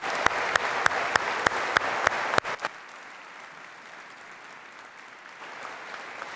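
Audience applause filling a large hall. For the first two and a half seconds it is topped by sharp, close claps at about three a second from the person at the microphone. The applause then falls to a softer, steady patter.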